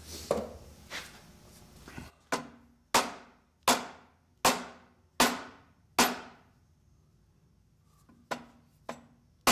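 Dead blow hammer striking the end of a rusted, seized steel arbor shaft on a Sears contractor table saw, driving the shaft to knock its bearings loose. A steady series of sharp blows a little under a second apart, then a pause of about two seconds and two more blows near the end.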